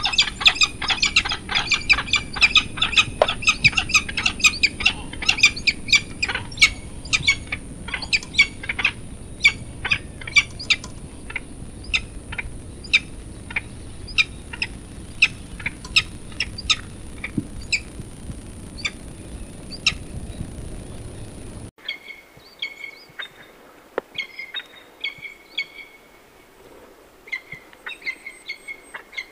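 Peregrine falcon calling: a long fast series of short repeated calls that slows and thins out over about twenty seconds, then after a cut, shorter runs of the same calls.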